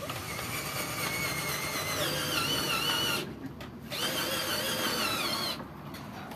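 Cordless drill driving screws into the wooden boards of a gate, running in two bursts: a longer one of about three seconds whose whine wavers and climbs in pitch, then a shorter one about a second later.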